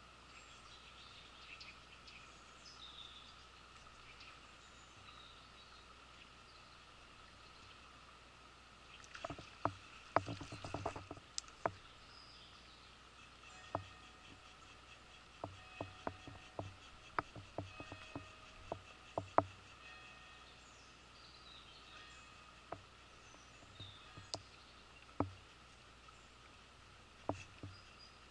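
Quiet riverbank ambience with a steady high hum and a few faint bird chirps. From about nine seconds in comes a quick run of sharp clicks and knocks, then scattered single clicks, typical of an angler handling spinning tackle or moving over stones.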